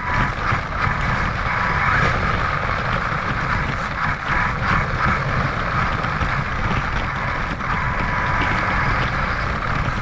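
Electric RC car running: a steady whir from its electric motor and drivetrain.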